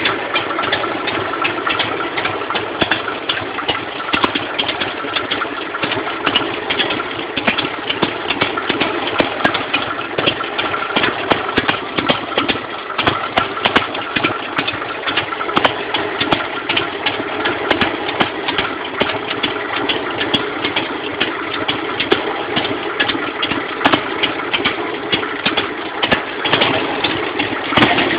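Harley-Davidson Sportster 883's air-cooled V-twin engine idling steadily, with dense fast ticking running through it.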